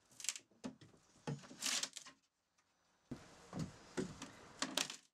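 Steel pry bar knocking and scraping against wooden floorboards as the boards are levered up: a string of short knocks and scrapes, with a faint steady hiss under the second half.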